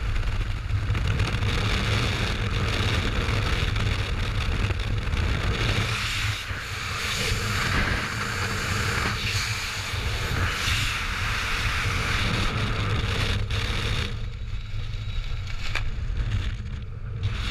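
Freefall wind buffeting a skydiver's helmet-mounted camera microphone: a steady rushing noise with a heavy low rumble. About fourteen seconds in, the high rush drops away and mostly the low rumble is left, as the parachute canopy is open and the fall slows.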